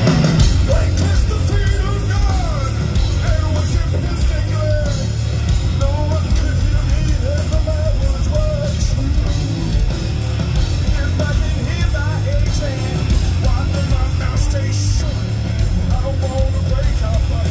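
Live rock band playing in concert, heard from the crowd: a singer's voice over electric guitars, bass and drums. The sound is loud and continuous, with a heavy low end.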